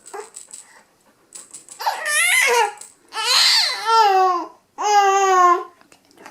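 A baby fussing in frustration: three drawn-out whining cries, each sliding down in pitch.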